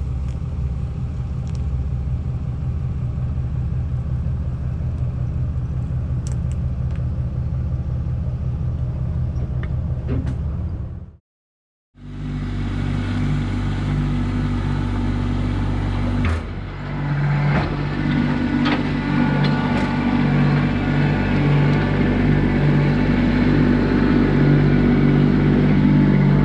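A motor vehicle's engine running steadily. About eleven seconds in it cuts off sharply for about a second, then an engine runs again, louder, with a few clicks and knocks.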